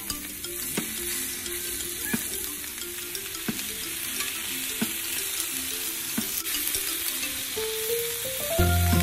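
Pork belly chunks sizzling and frying on a hot griddle plate, a steady high hiss. Soft background music runs underneath and turns much louder near the end.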